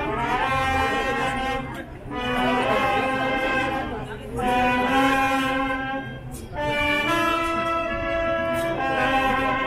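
Brass band playing a slow melody in long held notes, in phrases about two seconds long with short breaks between them.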